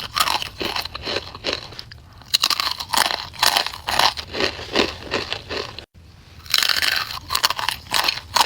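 Crunchy snacks being bitten and chewed, dense runs of loud crunches. There is a short lull about two seconds in and a brief gap just before six seconds, after which the crunching picks up again.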